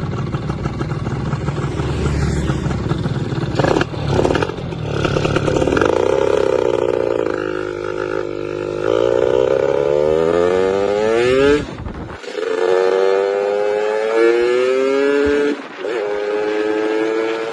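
Yamaha F1ZR two-stroke motorcycle engine pulling hard under acceleration, its pitch climbing steadily, then dropping and climbing again at gear changes about twelve seconds in and near the end.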